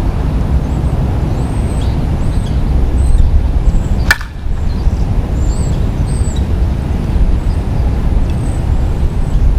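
A softball bat hits a ball once, a sharp crack with a short ring about four seconds in, over steady wind rumble on the microphone.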